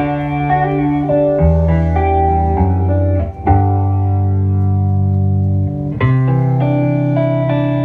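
Guitar and bass guitar played live at a sound check, strumming chords that change every second or so over a low bass line, with one long held chord in the middle.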